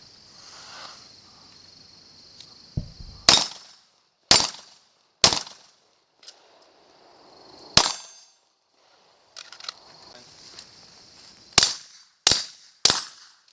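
Seven gunshots, fired irregularly: three about a second apart, one alone, then a quick three near the end. Crickets chirr steadily underneath.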